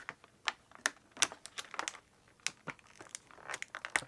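Plastic action-figure packaging being handled and pulled apart: a run of irregular crinkles and sharp crackles.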